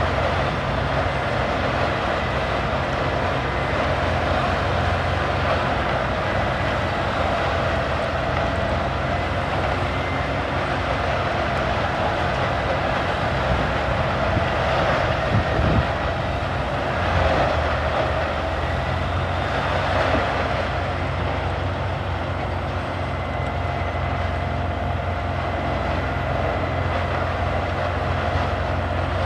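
CBI 6800 CT horizontal grinder running steadily as it grinds logs into wood chips, with a constant hum and mid-pitched tone and a few brief swells in the middle.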